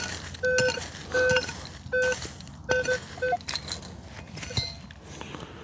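Minelab Manticore metal detector giving short low beeps, about seven in the first three and a half seconds, as the coil passes back and forth over a buried target reading 37. Sharp clinks and scrapes are mixed in. The beeps stop a little past halfway, leaving scattered softer clicks.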